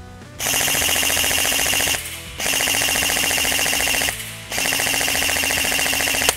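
D.E. Armory M906D airsoft electric rifle (AEG) firing on full auto: three long bursts of a bit under two seconds each, with short pauses between, each a very rapid rattle of the motor-driven metal gearbox cycling shot after shot.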